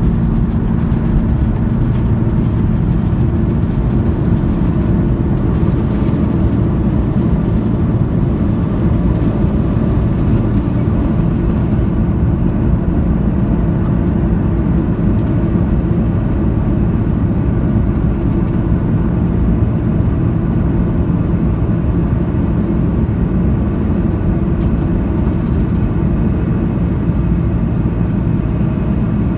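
Airbus A330-300 jet engines at takeoff thrust, heard from inside the cabin over the wing. A loud, steady noise with a low hum continues through the takeoff roll, liftoff and initial climb.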